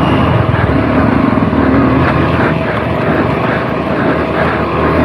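Motorcycle engine running steadily while riding on an off-road trail.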